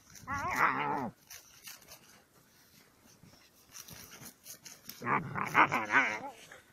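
Husky puppy giving two drawn-out, wavering play-vocalisations while wrestling another puppy in snow: one at the start and a longer one about five seconds in.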